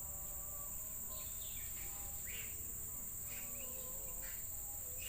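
Rainforest insects keep up a steady, high-pitched drone, with short chirps and faint wavering whistled notes over it.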